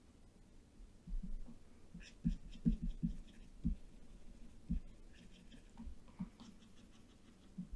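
Faint, irregular clicking and soft knocks from a computer mouse being worked at a desk.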